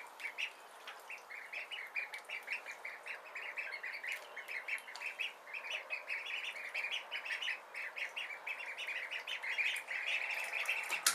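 A brood of Khaki Campbell ducklings peeping continuously, many short high chirps overlapping, several a second.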